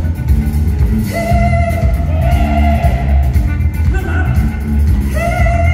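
Live band music with a loud bass and drum beat and guitar, under a male lead vocal holding long sung notes into a microphone.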